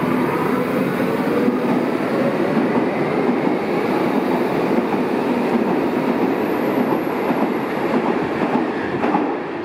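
Berlin U-Bahn class H train pulling out of a station: the traction motors' whine rises in pitch and fades within the first couple of seconds, then the wheels rumble and clatter on the rails as the cars pass, a little quieter near the end as the last car goes by.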